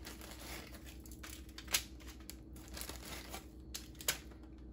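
Graham crackers being handled out of a crinkling plastic sleeve and set down on a foil-lined baking sheet, with scattered light clicks and two sharper ones, just under two seconds in and about four seconds in.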